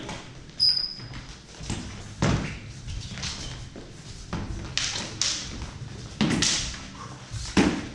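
Sword-and-dagger sparring in a large echoing hall: scattered sharp knocks and thuds from blade contacts, stick strikes and footwork on the floor, about six in all. Near the start one blade clash rings briefly with a high metallic tone.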